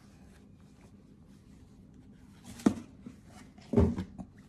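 A folded fabric quilt panel being unfolded and handled: a quiet stretch, then a sharp brief rustle about two-thirds in and a louder, longer rustle and bump near the end.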